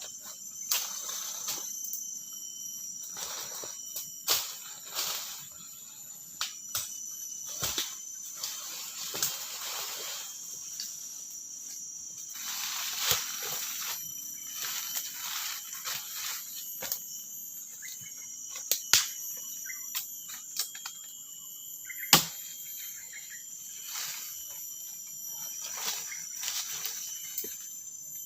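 Insects in the tropical forest keep up a steady high chirring, while leaves and twigs rustle. Scattered sharp knocks and snaps come through, with one loud crack late on.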